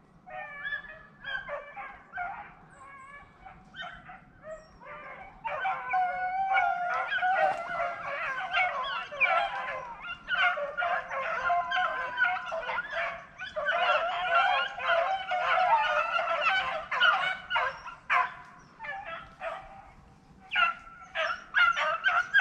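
A pack of rabbit dogs baying in full cry as they run a rabbit's trail. Many overlapping voices, scattered at first, then much louder and denser from about five seconds in.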